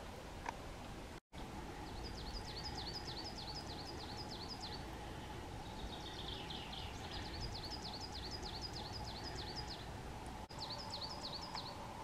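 A small songbird singing three runs of rapidly repeated high, down-slurred notes, over a steady outdoor background hiss.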